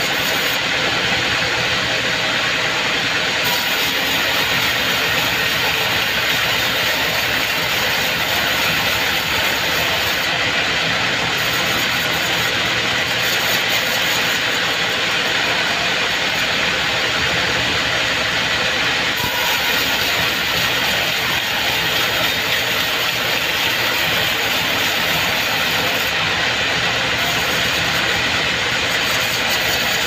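Vertical band sawmill ripping lengthwise through a mahogany beam: the blade and machine give a steady, loud sawing noise that does not let up.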